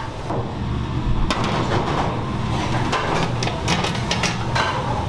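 Metal clanks and knocks from a large aluminium stockpot and its lid being handled on a kitchen range, several separate strikes over a few seconds, over a steady low hum.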